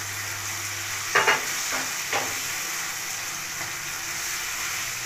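Chicken and vegetables sizzling as they are stir-fried over high heat in a non-stick wok, a steady frying hiss. A wooden spatula scrapes and knocks against the pan a few times, loudest just after a second in.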